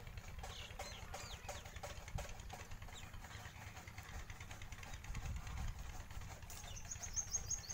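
Outdoor rural ambience: a steady low rumble, with small repeated bird calls such as clucking, and a short, rapid, high-pitched trill near the end.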